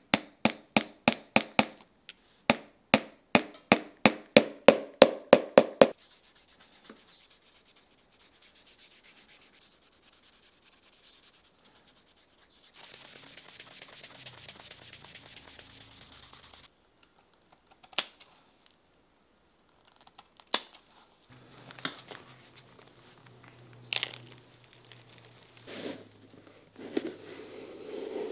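A small hammer tapping a nail into a leather-and-rubber shoe heel, about twenty sharp strikes in quick runs over the first six seconds. Then a cloth rubs polish onto the leather sole for several seconds, and scattered knocks and clicks follow near the end.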